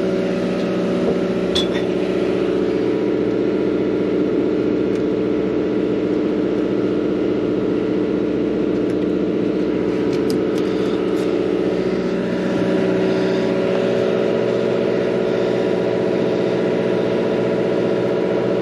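Sportfishing boat's engine running steadily, a constant drone that swells slightly about twelve seconds in, with a few faint clicks over it.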